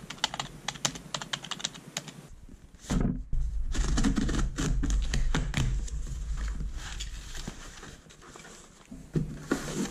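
Typing on a computer keyboard, a quick run of key clicks for about two seconds. Then a knife slitting the packing tape on a cardboard box and the box being pulled open, with louder scraping and rustling of cardboard flaps and a few sharp clicks near the end.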